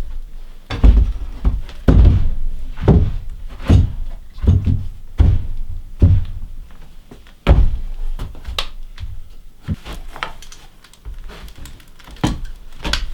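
Heavy wooden thuds, about one every second for the first seven seconds or so, then lighter scattered knocks, as lumber is knocked and fitted on the cabin's wooden staircase.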